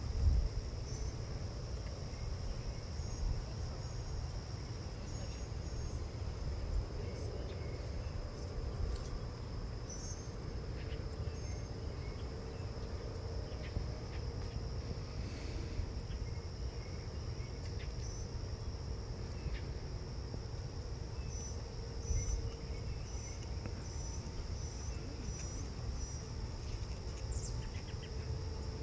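Insects, crickets among them, trilling in one steady high-pitched drone over a low rumble.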